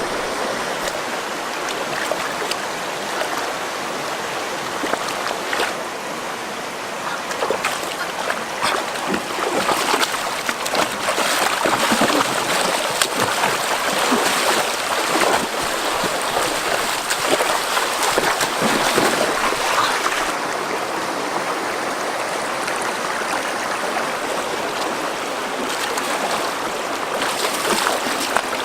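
River water running steadily, with many small splashes; louder for about ten seconds in the middle.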